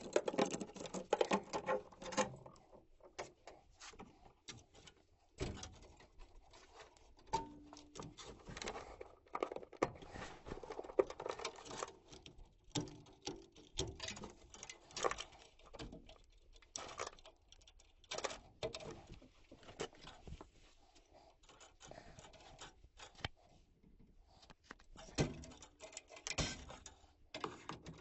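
Irregular clicks, taps and light rattles of hands and tools working on a gas furnace's metal cabinet and parts, with short pauses between.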